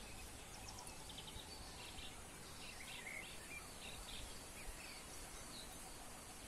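Quiet outdoor background hiss with faint, scattered bird chirps, and one light knock about three-quarters of the way through.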